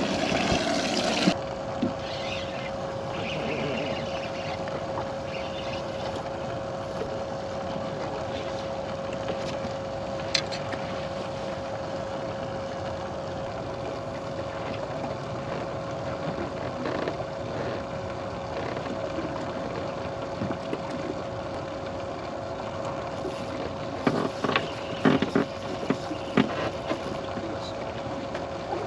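Steady electric motor hum on a bass boat, a single even tone over wind and water noise. A brief clatter comes at the very start and a run of sharp knocks on the boat about three-quarters of the way through.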